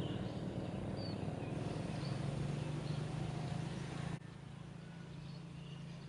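Outdoor ambience: a steady low mechanical hum, with a few short bird chirps scattered over it. About four seconds in the sound drops suddenly to a quieter background of the same kind.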